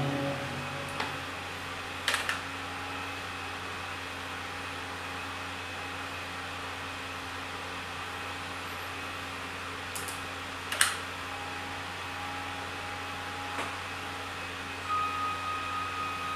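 Steady hum and hiss from a Yamaha CS-80 synthesizer setup between notes, with a few sharp clicks as its panel buttons and levers are set. A faint held synth note starts near the end.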